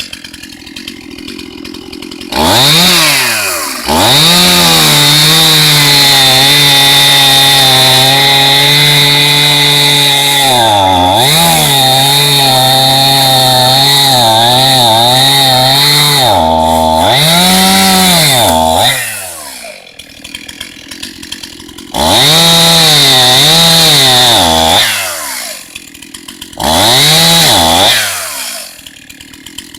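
Chainsaw idling, then run up to full throttle for a long cut of about seventeen seconds into a downed cherry trunk, its pitch dipping and rising as the load on the chain changes. It drops back to idle and is revved in two shorter bursts near the end.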